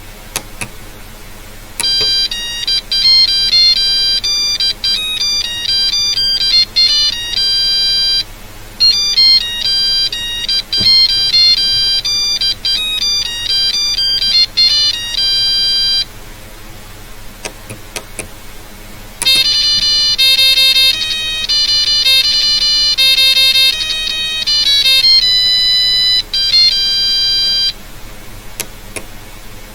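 Ringtone melodies played note by note as electronic beeps by an STM32F411 microcontroller decoding RTTTL ringtone files. One tune starts about 2 s in, pauses briefly near 8 s and runs on to about 16 s; after a gap with a few clicks a faster, busier tune plays from about 19 s to 28 s.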